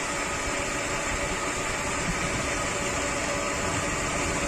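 Shimizu jet water pump running steadily, motor and impeller humming evenly, just after its mechanical seal and bearing were replaced.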